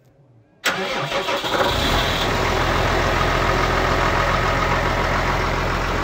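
An engine starts abruptly about half a second in and then runs steadily.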